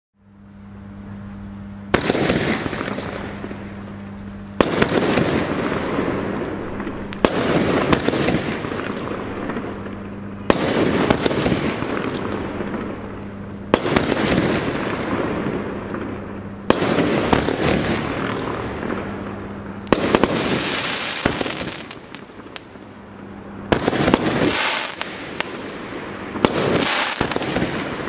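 Weco 'Golden Phoenix' fireworks battery firing: about ten sharp bangs, roughly one every three seconds, each followed by a long crackling hiss of the burst's stars that fades away.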